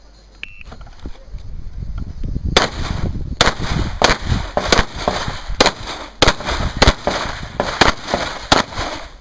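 A shot timer's start beep about half a second in, then a string of about a dozen 9mm pistol shots from a CZ SP-01 Shadow, coming irregularly at roughly two a second.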